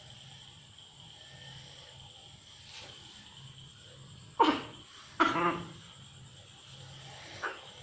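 A dying cat giving two short, loud cries about a second apart, each falling in pitch, then a fainter one near the end.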